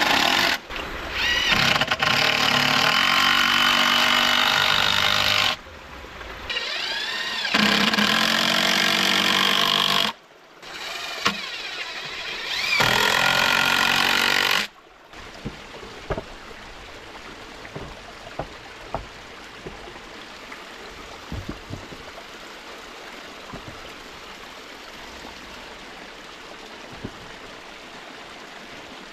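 Cordless drill driving screws into a pallet board in three long runs, its motor pitch rising and falling as each screw is driven. About fifteen seconds in the drilling stops, leaving the steady rush of a small stream with a few light knocks.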